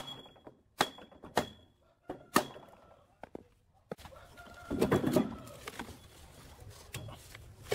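Sharp metal knocks, several ringing briefly, as the cast end bell of an air compressor's electric motor is tapped loose, then a louder scraping rumble about five seconds in as the end bell and rotor are pulled out of the stator.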